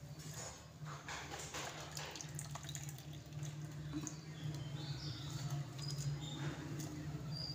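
Wet squelching and splashing as a bare hand scoops freshly churned butter out of buttermilk in a blender jar and squeezes it into a bowl, with irregular small wet clicks. A steady low hum runs underneath.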